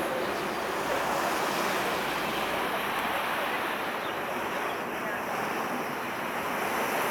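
Steady rushing noise of wind and waves, an even hiss with no distinct events.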